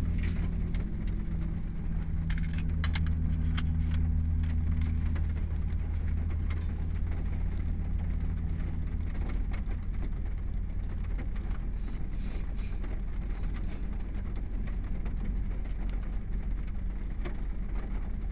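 Vehicle engine idling, heard from inside the cabin as a low steady hum, with a few light ticks scattered through it.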